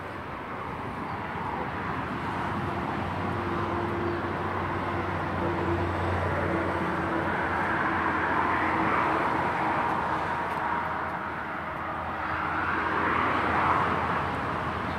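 Distant engine noise, a steady hum that grows louder over the first half, eases, then swells again near the end.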